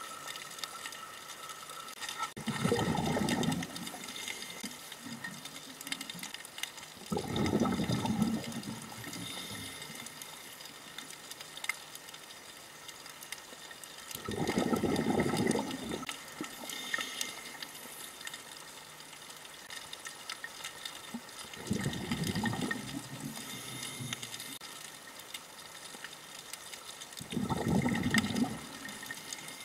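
Scuba diver's exhaled bubbles from the regulator, heard underwater: five bubbling bursts, one about every five to seven seconds, each lasting a second or so, over faint steady underwater crackle.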